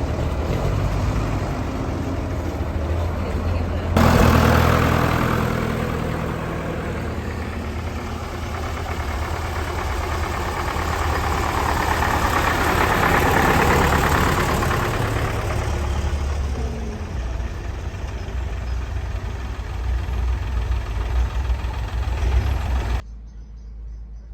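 Tractor engines running and idling. The sound changes abruptly about four seconds in and drops away sharply near the end.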